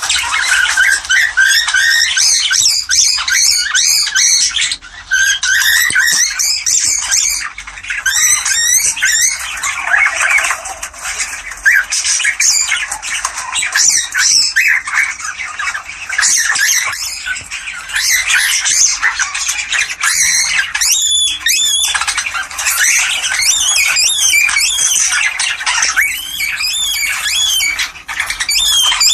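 Cockatiels calling in a dense, unbroken chatter of overlapping chirps, whistles and squawks: breeding-season mating calls.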